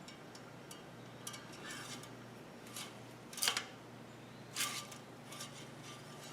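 Quiet handling noises of small objects: scattered light clicks and rustles, with two louder scraping or rasping sounds about three and a half and four and a half seconds in.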